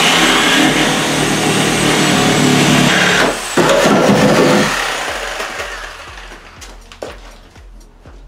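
Corded power tool cutting through the steel rear roof pillar of a car body shell, running hard with a short break about three seconds in, then winding down as the cut finishes and the pillar comes free.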